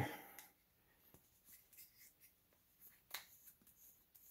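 Near silence with faint handling clicks and rustles as the cap is worked off a can of motor oil additive, and one sharper click about three seconds in.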